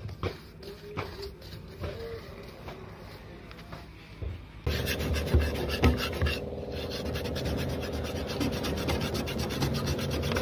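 Brush strokes on a wall, quiet and scratchy; then, about halfway through, abrasive paper scrubbed rapidly back and forth over the painted metal panel of a petrol pump dispenser, sanding it for repainting, louder and over a steady hum.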